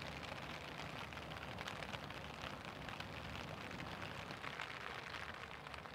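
Steady rain falling, with fine drops pattering on clear plastic umbrellas.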